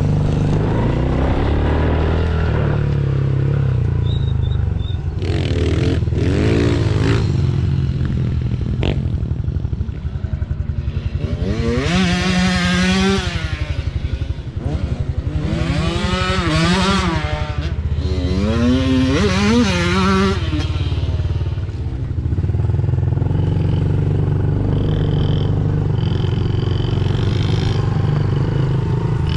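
Mini dirt bike engines running under a steady low drone. Three times, between about halfway in and two-thirds in, an engine revs up and falls away again.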